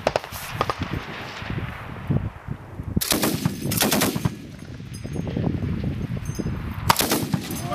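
DShK 12.7 mm heavy machine guns firing short bursts: one right at the start, the longest about three seconds in, and another near the end.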